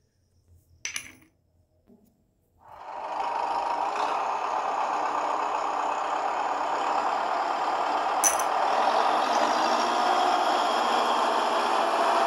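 A steady, rattling tractor-like engine sound fades in about three seconds in and runs on, growing slightly louder. There is one sharp click a little past the middle.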